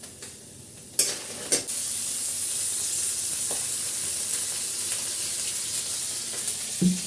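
Food hitting hot oil in a pan: two sharp spits about a second in, then steady sizzling frying.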